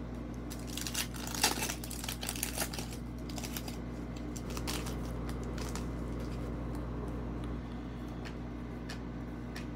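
Foil wrapper of a Panini Prizm basketball card pack crinkling and tearing as it is opened by hand: a run of crackles over the first few seconds, then a few light clicks.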